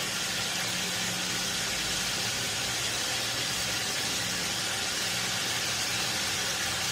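Beef pieces frying in ghee, a steady even sizzle with a faint low hum underneath.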